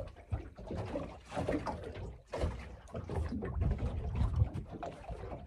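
Wind on the microphone and small waves slapping against the hull of a small fishing boat, coming and going irregularly.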